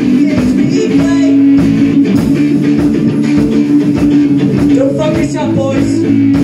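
Live rock band playing loudly: electric guitars over a drum kit, with no break.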